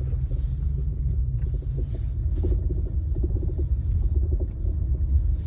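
LADA Vesta NG on the move: a steady low road rumble with many short, irregular knocks and rattles over it, which the owner takes for extraneous noise from the suspension.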